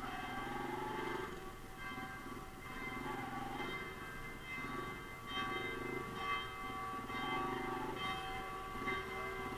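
Church bells ringing: several bells striking again and again, their tones lingering and overlapping. Under them a small motorcycle engine idles.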